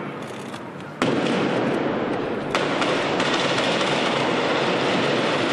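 Gunfire and stun-grenade blasts from a police assault on a building: two sharp bangs about a second and a half apart, each followed by a long reverberating wash of noise.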